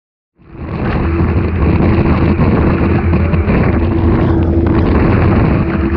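Wind buffeting the microphone and water rushing and spraying past the hull of a Hobie 16 catamaran sailing fast on a lake, starting abruptly about half a second in. A steady hum runs underneath.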